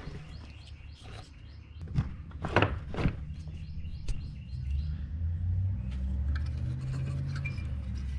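Scattered clicks and knocks of metal parts being handled on a jet ski's jet pump, with a few bird chirps. A low steady rumble swells in about five seconds in and is the loudest sound.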